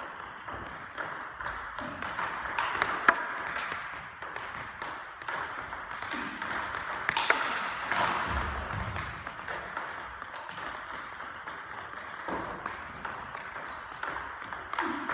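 Table tennis balls clicking in quick succession: a multiball drill with balls fed one after another and struck back with rubber-faced bats, bouncing on a Donic table.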